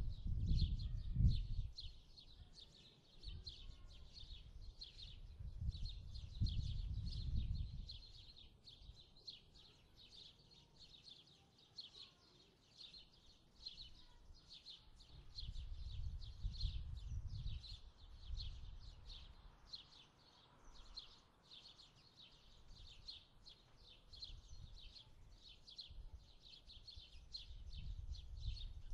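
Continuous rhythmic high-pitched chirping, about three chirps a second, typical of insects, with low rumbles that swell and fade a few times.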